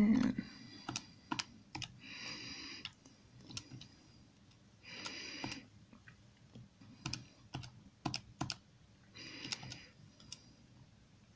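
Irregular clicks of keys being pressed on a calculator as a division is keyed in, with a few short soft rustling sounds in between and a single thump at the start.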